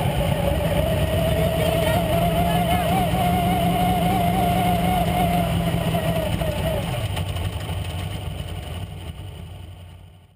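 Dirt modified race car's V8 engine running at a steady, low speed, heard from inside the car, with a wavering higher tone over it for the first seven seconds or so. The sound fades away over the last few seconds.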